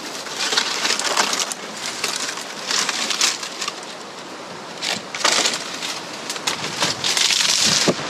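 Dry palmetto fronds and brush rustling and crackling as someone pushes through dense scrub on foot, in irregular bursts several times.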